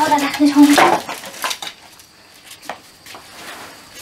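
A rooster squawks in short pitched calls through about the first second, then a few scattered knocks and clatters follow.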